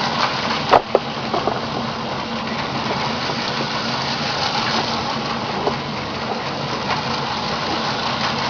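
Battery-powered Lego train running on its plastic track: a steady rushing whir of the small motor and the wheels on the track, with a couple of sharp clicks about a second in.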